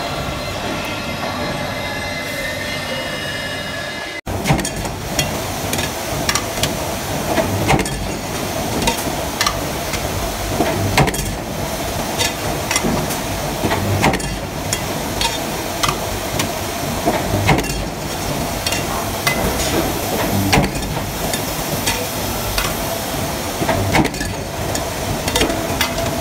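A CNC milling machine running steadily for the first four seconds. After a sudden cut, metal stamping presses work aluminium lamp-housing blanks: irregular sharp metal clanks and impacts over a steady machine hum.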